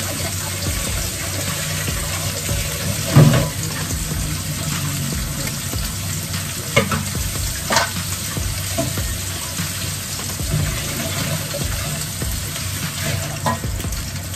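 Food sizzling as it fries in oil in a pan, with a few sharp knocks of a stirring utensil against the pan, the loudest about three seconds in.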